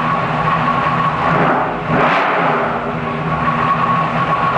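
V8 engine running on an engine dyno through open headers. Its revs climb briefly about one and a half to two seconds in, then settle back to a steady run.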